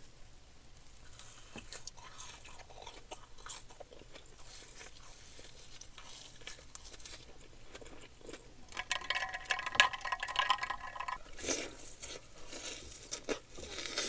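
Close-miked eating: crunching and chewing of a snack, with crackly bites that grow louder in the last few seconds. About nine seconds in, a steady pitched buzz-like tone is heard for about two seconds.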